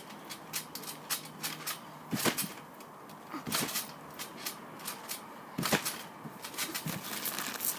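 A person jumping on a garden trampoline: irregular thumps of landings on the mat with light clicks and rattles between them, the loudest about two, three and a half and nearly six seconds in.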